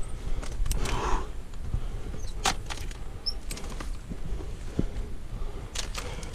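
A few sharp metallic clinks and knocks of a steel safety chain and steel staple footholds being handled while scrambling up rock, over a low steady rumble.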